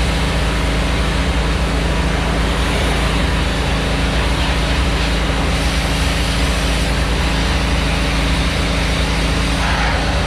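Hot-water pressure washer spraying a dump truck's chassis: a steady hiss of the high-pressure jet over the even sound of an engine running underneath.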